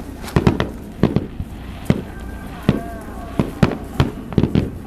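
Fireworks going off: a quick, irregular string of sharp bangs, several in close succession.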